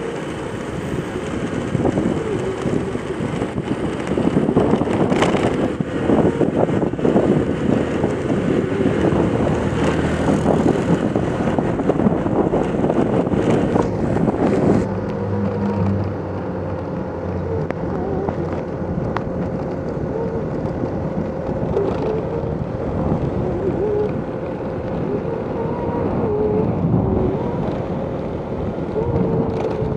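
Vehicle moving along a road, its running and road noise mixed with wind buffeting the microphone, gustier in the first half and a little calmer after about halfway.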